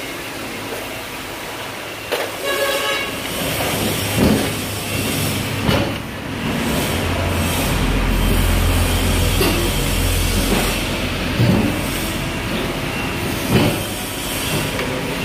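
Toyokoki hydraulic press brake running a bending stroke: a steady low hum for a few seconds in the middle while the punch presses down, with several sharp clunks. A short horn-like tone sounds about two seconds in.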